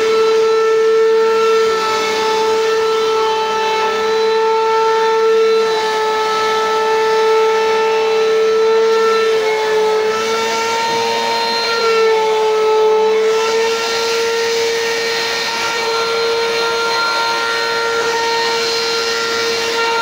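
Bissell PowerForce Compact bagless upright vacuum running on a rug, its motor giving a loud, steady high whine over a hiss of rushing air. The pitch dips briefly a few times.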